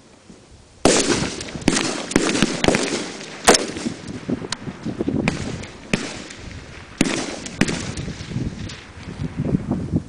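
Rifle fire on a firing range: single shots from M16-type rifles, starting about a second in and going on at an irregular pace, several shots close together, each crack followed by echo.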